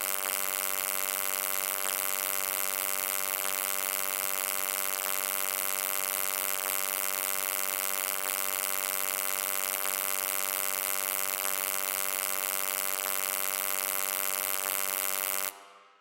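Low electric hum, steady and unchanging, that stops near the end and trails away within about a second.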